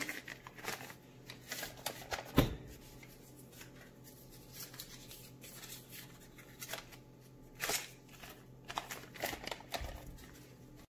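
Paper wrappers crinkling and rustling as sticks of butter are peeled and unwrapped, in short scattered bursts. A single sharp knock about two and a half seconds in is the loudest sound.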